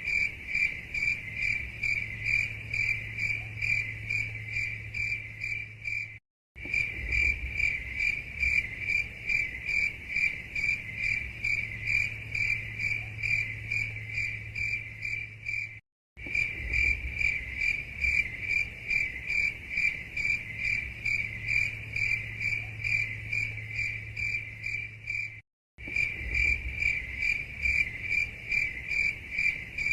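Crickets chirping in a steady, high, rapidly pulsing trill over a faint low hum. The sound drops to dead silence briefly three times, about every nine to ten seconds, then resumes unchanged.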